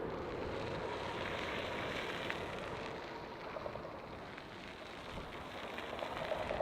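Jet airliner's engine roar just after it passes low overhead on final approach, a rushing rumble that fades and then swells again near the end.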